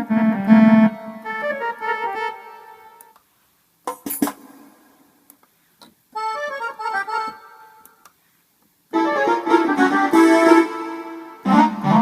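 Korg Pa50 arranger keyboard playing short melodic phrases in one of its built-in voices, with a single sharp hit about four seconds in. The phrases are separated by brief silences, as in a demonstration of its sounds.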